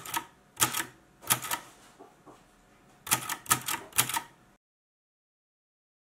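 Typewriter typing six keystrokes, each a sharp clack of a typebar striking: three about two-thirds of a second apart, a short pause with faint ticks, then three quicker ones. The sound cuts off suddenly about four and a half seconds in.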